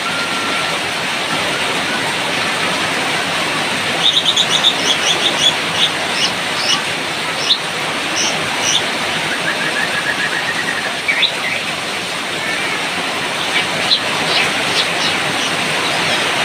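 Steady hiss of rain with a white-rumped shama singing over it. The bird comes in about four seconds in with a quick run of high chirps, then scattered sharp notes and a short lower trill.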